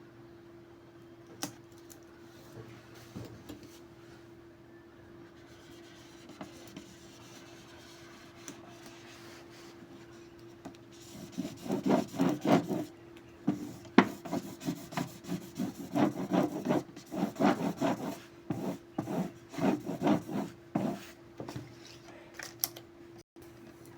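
A squeegee rubbing over a sticker's transfer sheet, pressing it onto the surface: a quiet start with a single click, then about ten seconds of repeated rubbing strokes from roughly halfway in. A steady low hum runs underneath.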